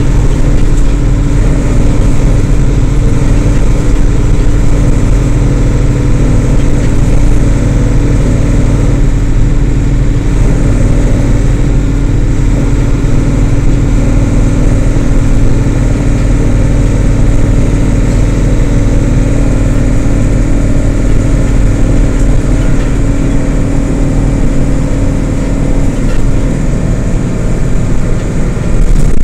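2006 Isuzu LT133P bus's diesel engine running steadily, its pitch holding level throughout, with a slight dip in loudness near the end.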